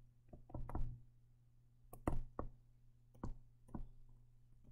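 A stylus tapping and clicking on a tablet screen during handwriting: a string of light, irregular knocks, clustered near the start and again around the middle, over a faint steady low hum.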